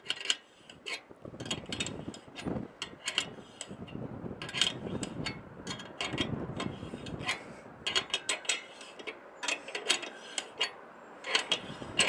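Irregular metallic clicks and rattles from a microwave antenna mount as its elevation adjustment is worked, sweeping the dish toward the main lobe of the signal.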